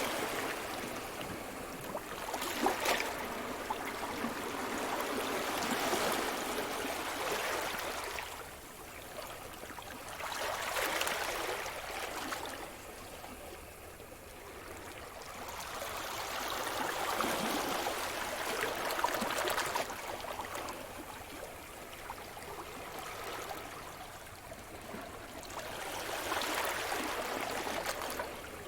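Sea surf washing on a shore: waves breaking and draining back in slow swells, one every several seconds, with crackling fizz on each break.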